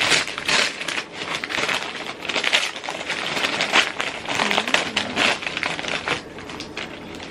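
Gift wrapping crinkling and rustling in irregular bursts as a present is unwrapped by hand.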